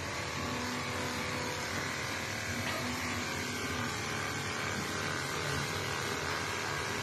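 Corded electric pet clippers running with a steady hum while shaving a long-haired cat's fur.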